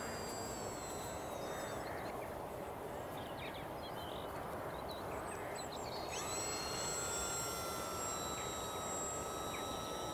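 Electric RC trainer plane's motor and propeller whining in flight: a thin, high whine that glides up to a new pitch about six seconds in, over a steady rushing noise.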